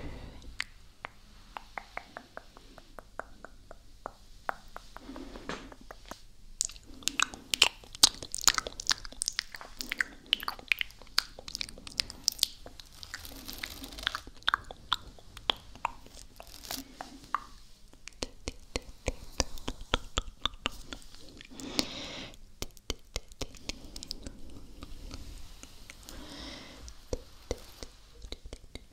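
Close-up wet mouth sounds into an ASMR microphone: rapid sharp clicks and smacks of tongue and lips, in bursts with short pauses.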